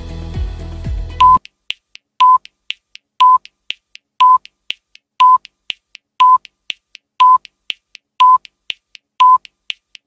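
Countdown timer sound effect: a short high beep once a second, with a fainter tick halfway between beeps. Background music stops about a second in, as the countdown begins.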